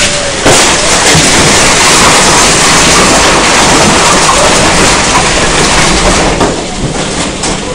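Tornado roaring over and through the house, a loud, dense rush of wind and noise that overloads the cell phone's microphone, rising sharply about half a second in and easing slightly near the end.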